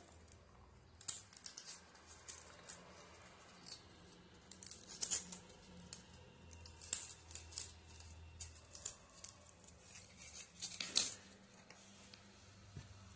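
Faint, irregular scratching and clicking of fishing hooks being pulled free from a small block of styrofoam and a nylon fishing leader being unwound by hand, with a slightly louder scrape about eleven seconds in.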